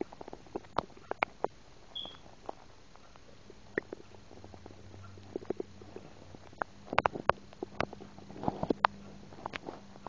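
Stomach and gut gurgling: a string of small wet pops and clicks, thickest in the second half, over a low steady rumble through the middle. These are the noises of swallowed soda and air moving down into the stomach.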